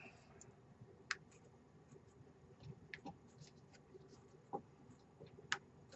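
Faint, scattered clicks and light scrapes of a spoon against a pot as sour cream is stirred into a thick stroganoff sauce, a few seconds apart.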